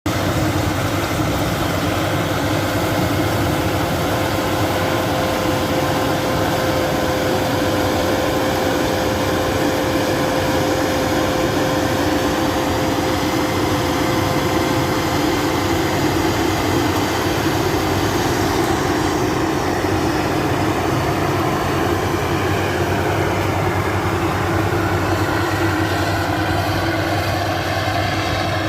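Rice combine harvester running steadily at working speed, a continuous mechanical din with a steady whine that fades out about halfway through.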